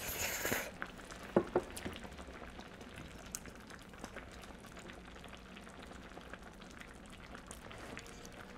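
A loud slurp of ramen noodles in the first half second, then close-miked chewing with many small wet clicks. Two sharp clicks about a second and a half in are the loudest sounds.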